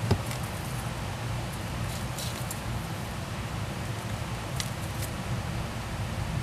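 A steady low rumble with a few faint clicks, one with a thump just at the start, a small cluster about two seconds in and another about four and a half seconds in, as a gerbil drinks from the metal sipper spout of a pet water bottle.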